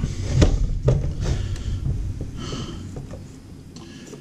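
Handling noise of wire being worked at the end of a flexible metal conduit: a few light clicks and knocks in the first second and a half, then faint rustling that grows quieter.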